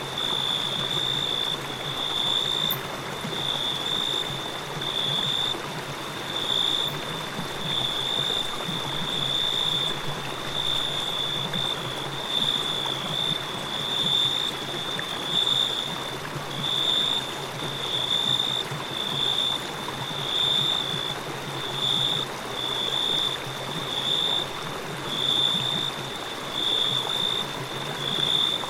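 Crickets chirping in an evenly pulsing high trill, about one pulse a second, over the continuous rush of a flowing river.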